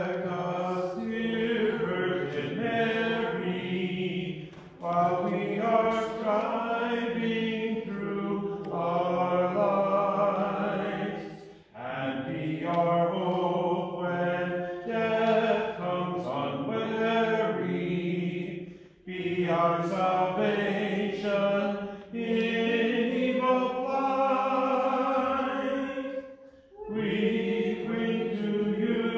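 Voices singing Eastern-rite liturgical chant for a moleben to the Mother of God, sustained, held notes sung in phrases of about seven seconds with brief breaks between them.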